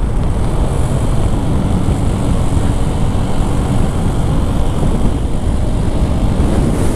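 A motorcycle riding along at speed: its engine running steadily under a constant low rush of wind on the microphone.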